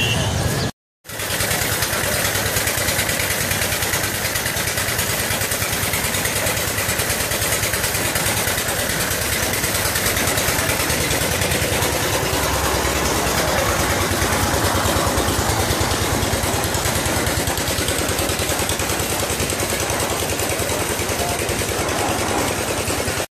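An engine running steadily with a rapid, even pulsing. It starts about a second in, after a brief gap.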